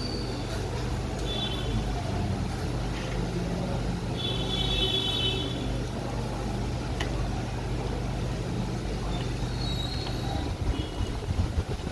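Steady low machine hum, typical of a laser cutter's exhaust fan and air pump running, with a few short high chirps here and there.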